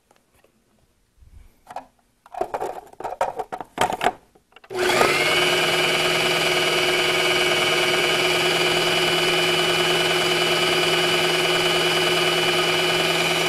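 A few knocks and clatters, then about five seconds in an electric food processor's motor starts and runs steadily, blending a thick ricotta and cream mixture.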